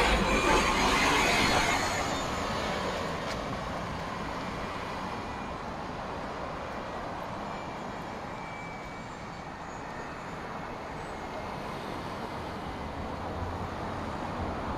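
City bus passing close by and pulling away, its engine and tyre noise loud at first and fading over the first two seconds, followed by steady street traffic noise.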